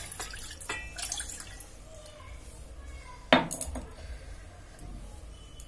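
Last of a cup of water trickling and dripping from a glass mug into an aluminium cooking pot, with small clinks. About three seconds in comes one sharp clink that rings briefly, glass or metal knocking against the pot or the stove.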